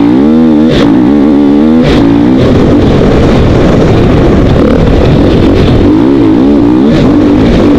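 2012 KTM 450 XC-W's single-cylinder four-stroke engine revving hard as the dirt bike pulls away from a start, its pitch climbing twice in the first two seconds, then running hard with a rough, noisy roar over the trail.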